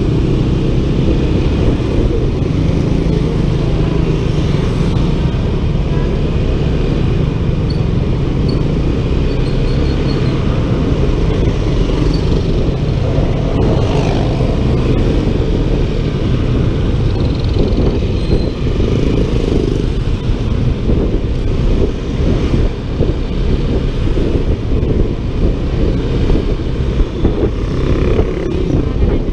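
Honda ADV 150 scooter underway at road speed: steady wind rush on the microphone, with engine and road noise beneath it.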